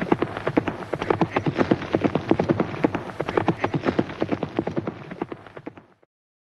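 Horse hooves galloping in a fast, dense clatter of hoofbeats that fades out and stops about six seconds in.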